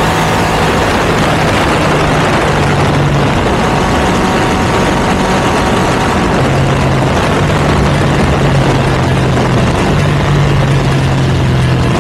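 Ducati V2 twin-cylinder engine through a Termignoni exhaust, running steadily at cruise with only small shifts in pitch. Heavy wind rush lies under it.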